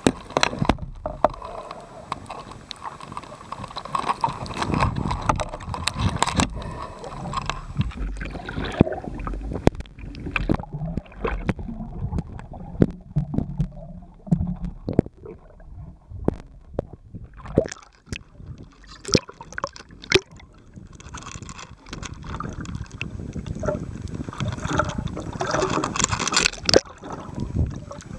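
Underwater sound heard through a camera housing: water rushing and gurgling with many sharp clicks and knocks, quieter for a few seconds in the middle and busier again near the end.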